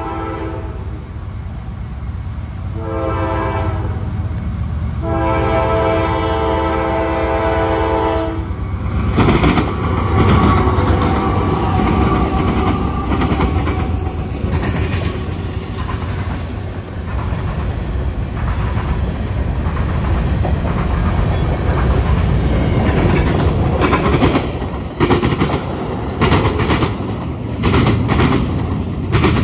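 Diesel locomotive's chord horn blowing a short blast and then a long one, the close of a grade-crossing signal. Then the train passes close by with a loud, steady rumble and wheels clicking over the rail joints, the clicks coming thick and fast near the end.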